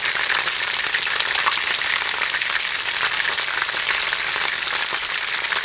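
Battered chicken thigh pieces (karaage) deep-frying in hot oil in a frying pan: a steady sizzle with a dense crackle of many small pops.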